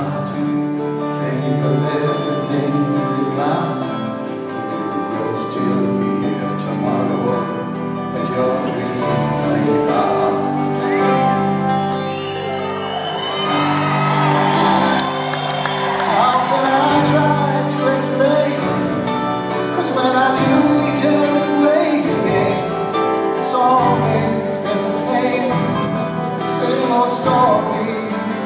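Live performance of a folk song: a male singer with acoustic guitar and backing band, heard through the reverberation of a large concert hall.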